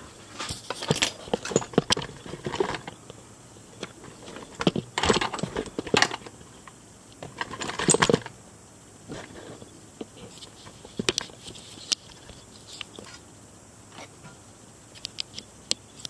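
Handling noise: short clinks, clicks and scrapes of hard objects being moved about. There are several dense clusters in the first half and scattered single clicks later.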